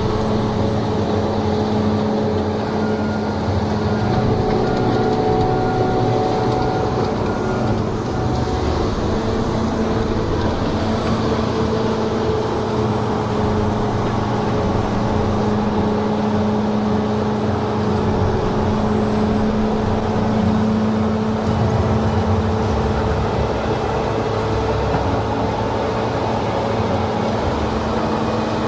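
Heavy construction machine's diesel engine running steadily under load, a constant low hum with mechanical noise.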